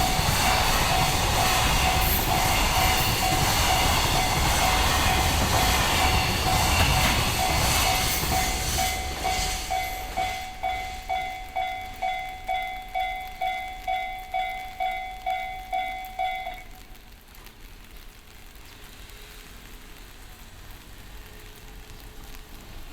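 Freight train wagons rolling past a level crossing, with the crossing's electronic alarm (JR standard tone) ringing in quick, evenly repeated dings. The train noise fades about ten seconds in and the alarm rings on alone. The alarm stops abruptly about sixteen seconds in.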